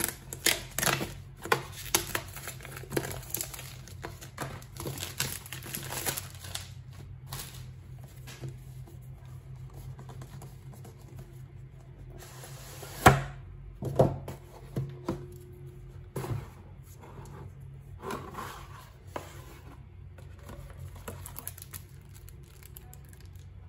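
Small cardboard box being unpacked by hand: a pen scratching and poking through its tape seal, then the lid and inner cardboard and plastic sleeve rustling and rubbing. There is a sharp knock about 13 seconds in.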